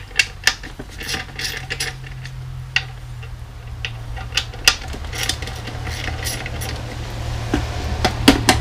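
Small metal drum hardware (lug screws and lock washers) clinking and clicking as it is handled, in scattered sharp clicks, over a steady low hum.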